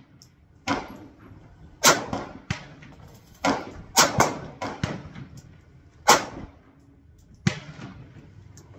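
Gunshots from other shooters at an outdoor firing range: about eight sharp cracks at irregular intervals, each with a short echo.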